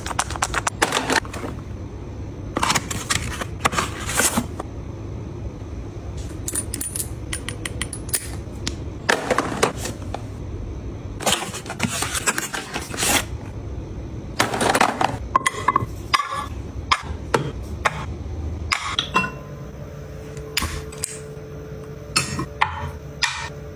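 Close-up handling of skincare bottles and their packaging: irregular clicks and taps of bottles, caps and jars being picked up and set down, and the scrape and rustle of a cardboard box being opened. A faint steady hum comes in during the last few seconds.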